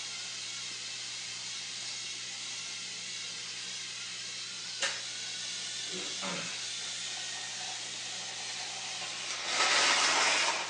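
Steady hiss, broken by a sharp click about five seconds in and a louder burst of rushing, hissing noise that rises about a second before the end.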